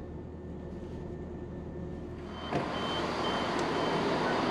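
Low steady hum inside the stopped Class 168 diesel train. About two and a half seconds in, the door opens and the sound of the platform comes in, with four short high beeps from the train's door warning about half a second apart.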